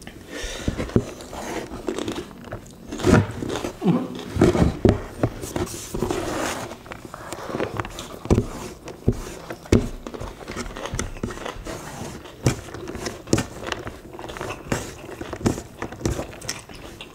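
Close-up mukbang eating sounds: two people chewing and smacking on rice and beef in chili sambal eaten by hand, heard as a run of irregular wet clicks and smacks.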